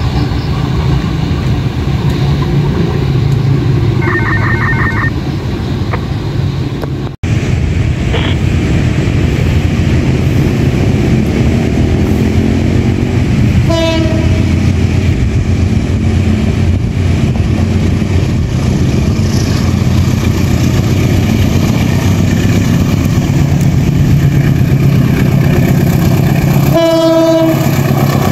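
A train running past with a loud, steady rumble of engine and wheels. A short horn blast sounds about halfway through, and a longer one comes near the end.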